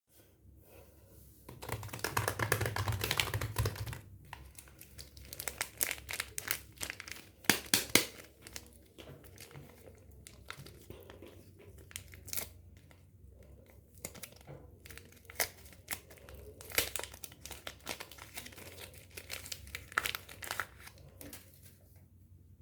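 Soap packaging being unwrapped: wrapper crinkling and tearing, dense for a couple of seconds near the start, then in scattered sharp crackles and clicks.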